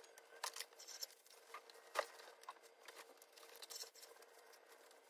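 Faint rustling of thick clothing being pulled on, with scattered light taps and clicks, the sharpest about two seconds in, over a faint steady hum.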